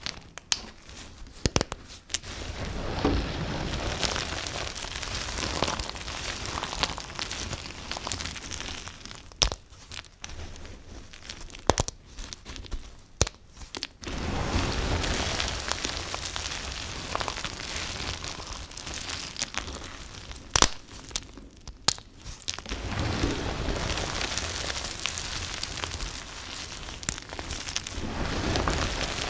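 A knife cutting through soap with a crackly, crunching scrape, in three long strokes. Sharp single taps fall in the pauses between them.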